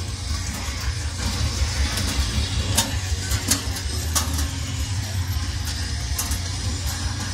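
An engine running with a steady low rumble, with a few sharp clicks about halfway through.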